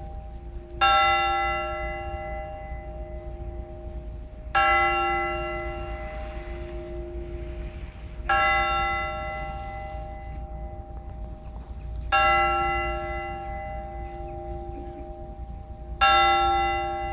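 A single large Orthodox church bell struck five times at an even, slow pace, about every four seconds, each stroke ringing out and fading before the next. This is the measured one-bell tolling of the blagovest.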